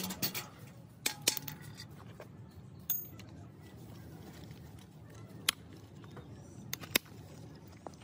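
A few sharp metallic clinks and taps at irregular intervals, the loudest about five and a half and seven seconds in, over a low steady background hum: hand tools and small metal parts being handled.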